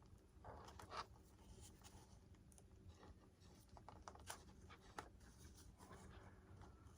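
Faint scratching and rustling with scattered small clicks: hands handling wires and parts on a foam RC model airplane.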